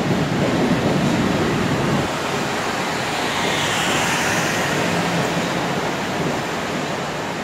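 Long Island Rail Road M3 electric train pulling out beside the platform: a steady rushing of wheels on rail, with a faint high whine that falls in pitch about halfway through.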